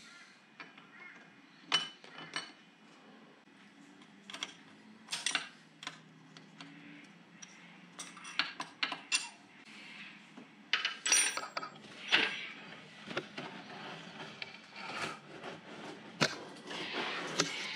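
Light metal clicks and clinks at irregular intervals as steel parts of a Centec milling machine's table and half-nut mechanism are handled and worked by hand, with a busier cluster of clinks about eleven seconds in.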